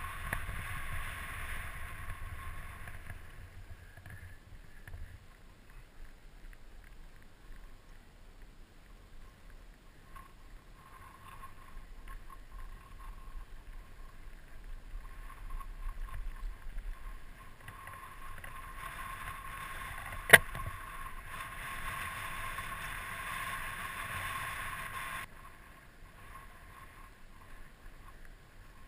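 Mountain bike rolling fast down a dry dirt singletrack: tyre noise and bike rattle with wind rumble on the helmet camera's microphone. A steady whirr swells toward the end and cuts off suddenly, and there is one sharp click a little past two-thirds of the way through.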